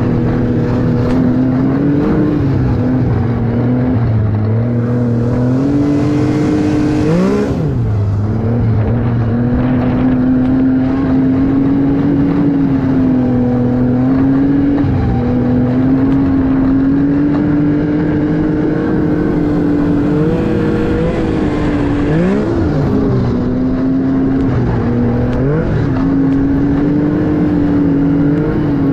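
Arctic Cat snowmobile engine running steadily under way, heard from the sled itself. Its pitch dips and climbs back a few times as the throttle is eased off and opened again, most clearly about seven and twenty-two seconds in.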